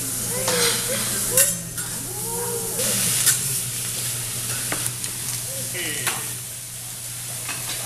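Vegetables sizzling steadily on a hot hibachi (teppanyaki) griddle as they are stir-fried, with several sharp clicks and scrapes of a metal spatula on the steel flat-top.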